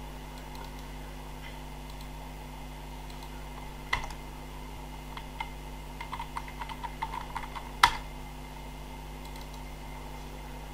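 Computer keyboard typing: a sharp click about four seconds in, a quick run of light keystrokes, then one harder key strike about eight seconds in. A steady low electrical hum runs underneath.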